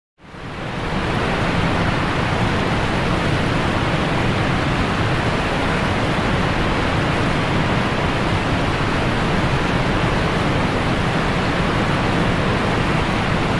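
A steady, even rushing noise with no rhythm or pitch. It fades in over about a second and cuts off suddenly near the end.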